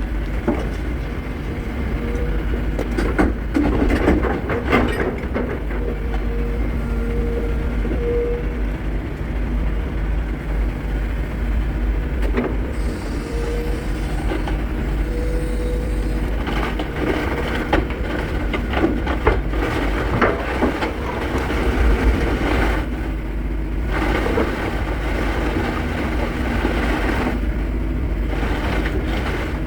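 Tracked excavator's diesel engine running steadily under load, with repeated clanks and knocks from the machine as it climbs onto a long low-loader lorry.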